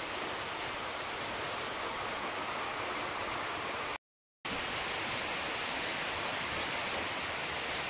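Heavy rain falling: a steady, even hiss, broken by a complete dropout of about half a second midway.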